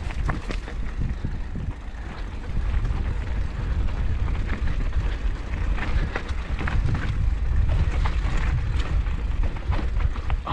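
Wind buffeting the microphone in a steady low rumble as a Schwinn Boundary mountain bike rolls down a dirt singletrack, with scattered clicks and rattles from the bike and tyres over the bumps.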